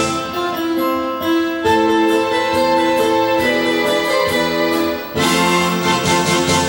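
Enka karaoke backing track playing an instrumental passage between sung lines, with a brief dip about five seconds in before the full band comes back in.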